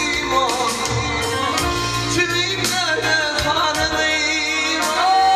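A man singing a Turkmen pop song live into a microphone, with an ornamented, sliding melody over keyboard accompaniment and a steady beat; near the end he starts holding one long note.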